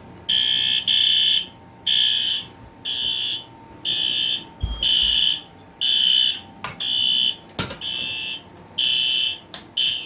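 System Sensor i3 smoke detector sounding its alarm under a button test: a loud, high-pitched beep about once a second, each beep about half a second long. A few clicks and a low thump fall between the beeps.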